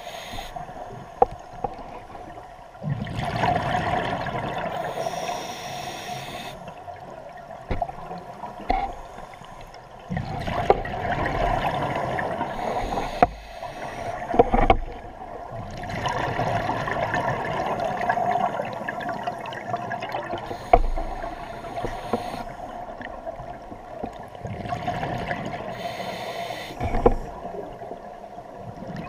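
Scuba diver breathing through a regulator underwater, heard through the camera housing: a loud bubbling rush of exhaled air about every six seconds, with quieter inhalations in between. A few sharp knocks fall among the breaths.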